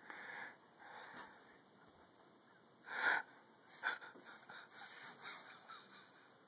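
A baby's breathy, excited vocal sounds in short bursts, huffing into a mirror while playing with her reflection; the loudest comes about three seconds in, with a few sharper ones after.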